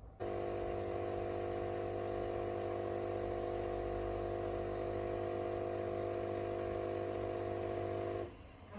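An electric household appliance's motor switched on and humming steadily at one even pitch, then switched off about eight seconds in.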